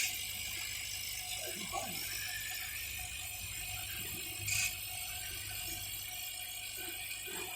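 Small 6040 CO2 laser cutter running a cut: a steady hum and hiss from the machine, with faint whirring glides as the stepper motors move the laser head. There is a short hiss at the start and another about four and a half seconds in.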